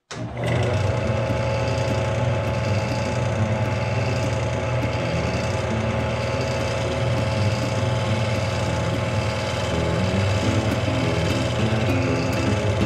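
Wood lathe starting up and running steadily with a low motor hum, as a freshly sharpened bowl gouge takes a light finishing pass on the back of a spalted silver maple and resin bowl to clean up tear-out.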